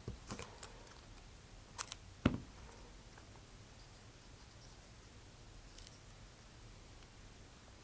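A few small clicks and taps from scissors and a plastic model-rocket capsule being handled, bunched in the first two and a half seconds, then quiet room tone with one faint tick near six seconds.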